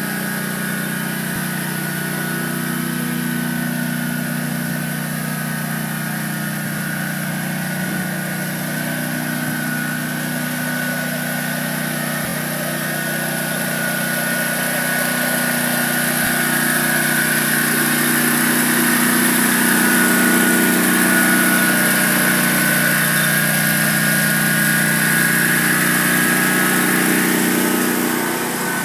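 John Deere 737 zero-turn mower's 23 HP Kawasaki V-twin engine running steadily, with a high whine over it. It gets louder from about halfway through and eases back just before the end.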